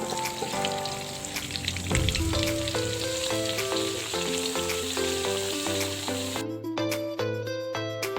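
Food sizzling as it fries in hot oil in a pan, with stirring, over a background music melody. The frying cuts off abruptly about six and a half seconds in, leaving only the music.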